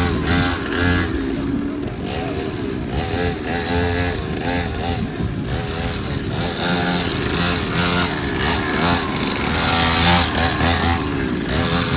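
Motorcycle engines revving, their pitch rising and falling over and over.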